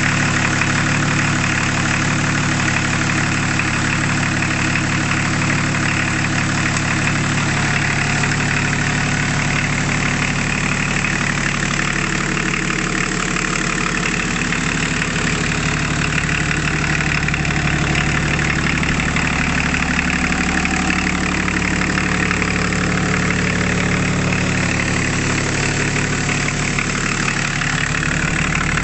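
BMW 175 hp turbocharged six-cylinder marine diesel running steadily, its speed holding even.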